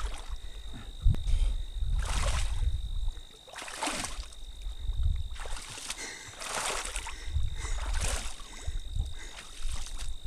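Someone wading through bog water and dense wetland vegetation beside a canoe: splashing and sloshing in bursts every second or two, over a low rumble.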